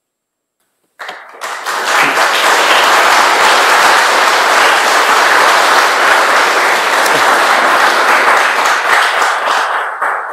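Audience applauding: it starts about a second in, swells quickly to a loud, steady sound, and begins to fade near the end.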